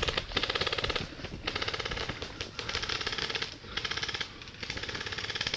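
Airsoft electric gun (AEG) firing on full auto in short bursts, about six in a row, each a rapid clicking rattle of the gearbox cycling, lasting under a second with brief pauses between.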